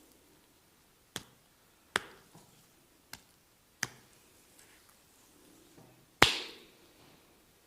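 Five sharp percussive strikes of a massage, irregularly spaced, with the last one the loudest and trailing a short ringing tail.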